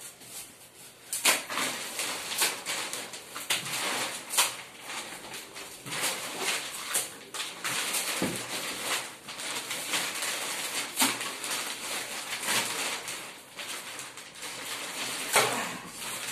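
Clear plastic wrapping crinkling and crackling as it is handled and pulled off a carrom board, with a few louder sharp crackles among the steady rustle.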